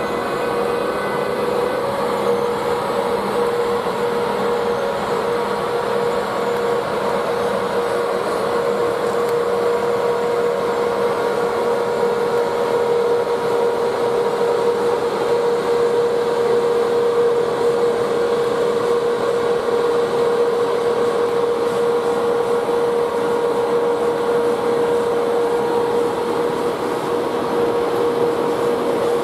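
British Rail Class 92 electric locomotive running, giving a steady electric hum with one constant pitched tone over the noise of its equipment, unchanging throughout.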